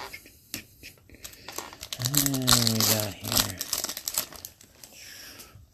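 Foil trading-card pack wrappers crinkling and tearing as packs are opened and cards handled, in quick crackly bursts that are thickest in the middle. A man's voice makes a brief low drawn-out sound in the middle.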